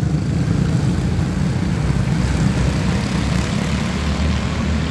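A pack of quarter midget race cars' small single-cylinder Honda engines running at racing speed, a steady drone.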